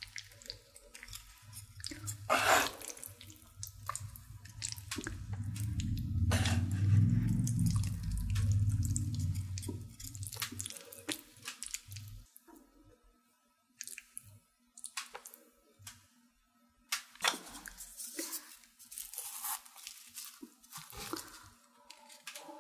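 Chopsticks stirring and lifting sticky, sauce-coated instant noodles, with wet squelching and short clicks throughout. A low rumble runs from about four to eleven seconds in.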